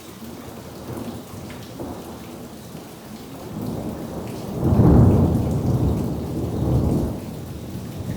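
Thunder rumbling over steady rain: a deep roll that builds about halfway through, peaks, swells once more and fades near the end.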